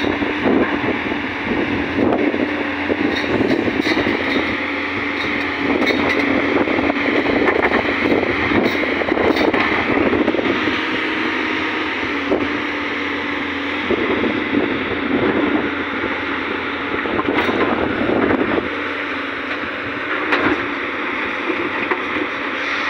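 JCB 215 crawler excavator's diesel engine running steadily under load with a constant hydraulic hum. Over it, irregular swells of noise as the bucket scrapes and clatters through rocky soil.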